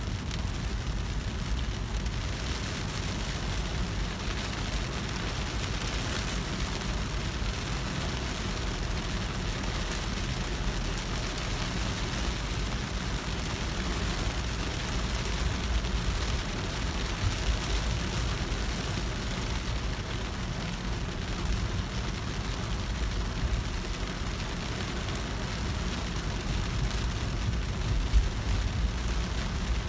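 Heavy rain drumming on a car's windshield and roof, heard from inside the moving car over a steady low rumble of road and engine. There is a single low thump near the end.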